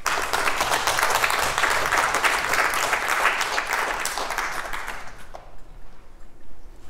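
Audience applauding, a dense patter of many hands clapping that starts at once and dies away about five seconds in.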